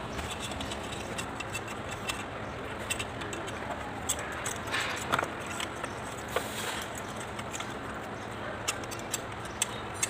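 Small metal parts clinking and tapping as they are handled in a tray of used oil, scattered irregular clicks over a steady background noise.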